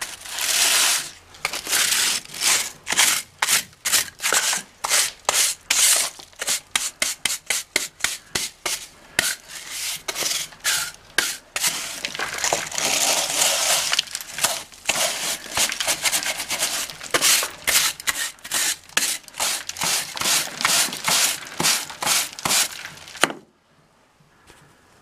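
Stiff plastic-bristled hand brush scrubbing dust and grit off rough masonry in quick back-and-forth strokes, about two to three a second, stopping abruptly near the end.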